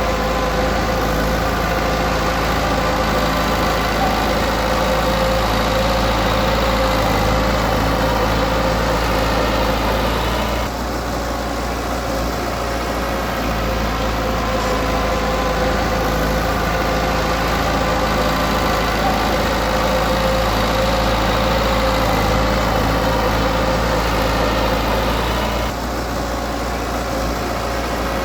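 Komatsu D20P bulldozer's diesel engine running steadily, easing off briefly about ten seconds in and again near the end.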